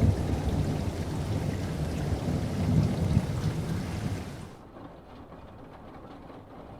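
Heavy rain hissing with a deep rolling rumble of thunder, which cuts off abruptly about four and a half seconds in, leaving a quieter, duller background.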